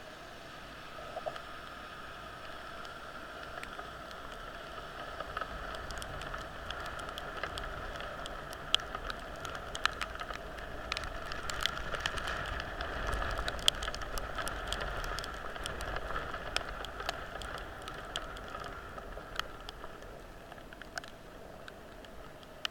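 Heavy rain: many irregular sharp taps of raindrops close to the microphone, thickest through the middle, over a steady wet hiss and low rumble.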